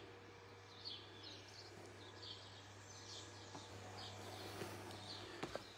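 Small birds chirping faintly over a steady low hum from the garden's pool and irrigation pump, with a couple of soft knocks near the end.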